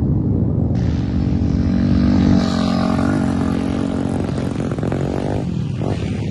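Trail motorcycle engines running hard on a dirt circuit. The pitch rises as a bike revs up about two to three seconds in, then eases off.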